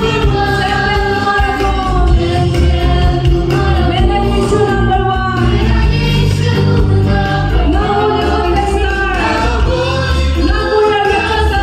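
Music with a group of voices singing, over a heavy, pulsing bass line.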